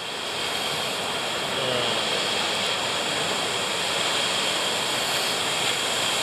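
Strong wind blowing steadily across the microphone, an even rushing noise.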